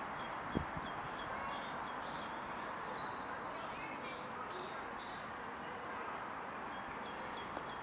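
Outdoor city ambience: small birds chirping over and over in short high notes against a steady wash of background noise, with one sharp tap about half a second in.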